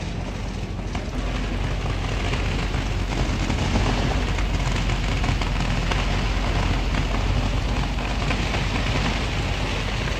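Pickup truck towing a parade float trailer rolling past: steady engine and tyre noise that grows a little louder about two seconds in.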